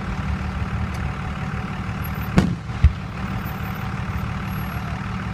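Fireworks going off: a sharp crack about two and a half seconds in, followed about half a second later by a duller boom, over a steady low rumble.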